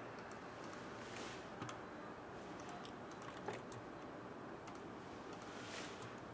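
Faint, scattered light clicks over a steady low hiss, with soft brushing swishes about a second in and again near the end: small handling sounds, like cards being moved on a glass tabletop or light typing.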